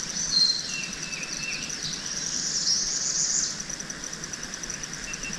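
Insects in the swamp making a steady, high, evenly pulsing drone, with birds calling over it: a few short calls in the first two seconds and a louder warbling call from about two to three and a half seconds in.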